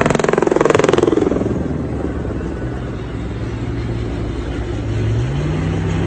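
An off-road vehicle's engine, its revs falling away in the first second, then running steadily and picking up again about five seconds in.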